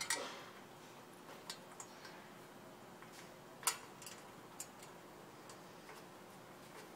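Faint, scattered metallic ticks and clicks as a screw is turned in by hand on a metal display frame, with one sharper click about halfway through.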